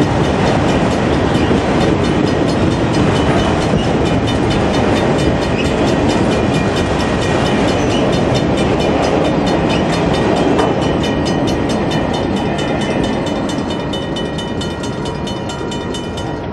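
Freight cars rolling past on the rails, a steady rumble and rattle of steel wheels with rapid clicking. The noise fades over the last few seconds as the tail end of the train goes by.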